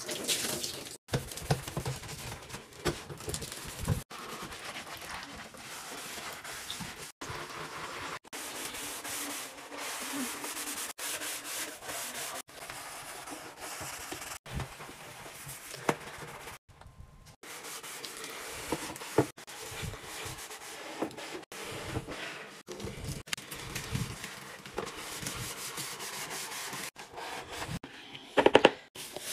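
A scrub sponge rubbing back and forth on a hard surface, a steady scratchy scrubbing broken by short cuts. Near the end a brief louder swishing as a brush is worked in a bucket of soapy water.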